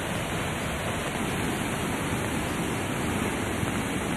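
Floodwater rushing: a swollen, muddy river in spate running fast and churning, a steady rush of water.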